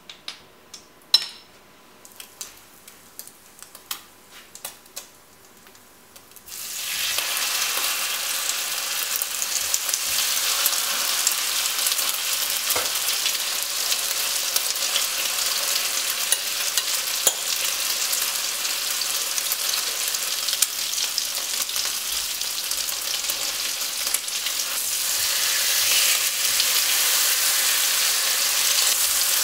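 A few light clicks and taps from handling the bowl, plate and bread, then about six seconds in a sudden loud sizzle starts as egg-soaked bread with a cheese and ham topping hits hot oil in a frying pan. The frying hiss carries on steadily, swelling a little near the end.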